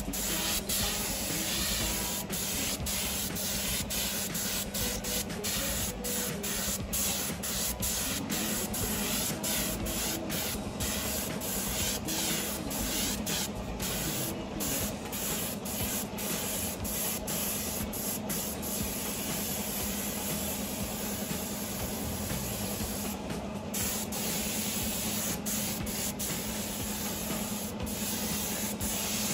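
Continuous spraying hiss, steady throughout, with a low steady hum underneath.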